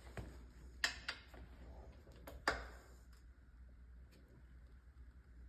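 A few sharp clicks and taps of hand-tool work on a gearbox: two about a second in and two more about two and a half seconds in, over a faint low hum.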